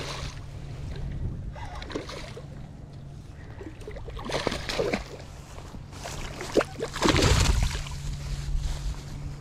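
A hooked snook splashing and thrashing at the water's surface in several separate bursts as it is fought to the bank, the biggest splash about seven seconds in. A steady low hum runs underneath.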